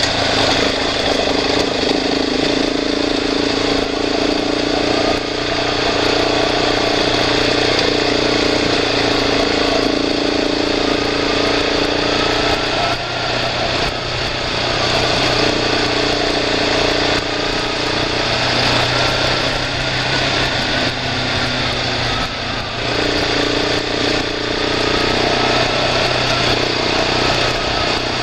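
Vehicle engine running while driving along a rough dirt road. The engine note fades back and picks up again several times as the throttle changes.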